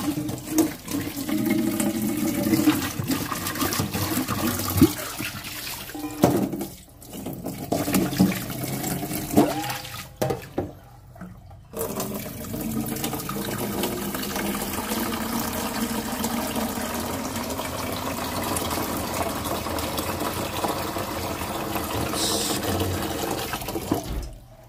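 Kitchen faucet running into a stainless steel sink and then filling a stainless steel cooking pot, a steady splashing hiss broken by two short pauses. The water shuts off suddenly near the end.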